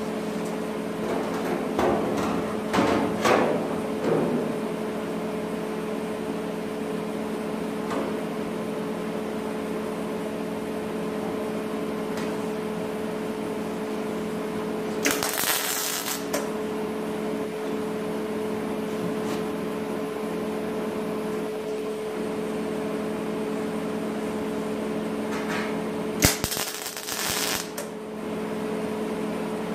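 Steady workshop hum throughout, with two short bursts of hissing crackle, about halfway through and near the end, as a welder tack-welds the filler-door panel to the sheet-metal bed side. A few light clicks and knocks in the first few seconds as the panel is handled.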